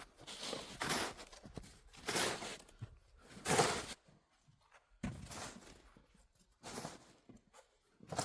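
Footsteps crunching in snow: a series of separate crunches, about one every second or so, with a longer gap about four seconds in.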